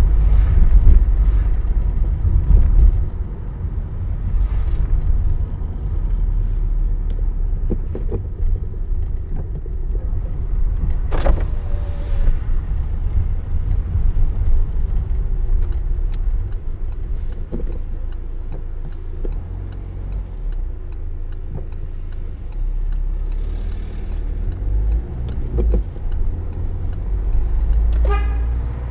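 Car driving on a road: a steady low rumble of engine and tyres, with scattered small clicks and knocks. It is louder for the first three seconds or so, then eases off.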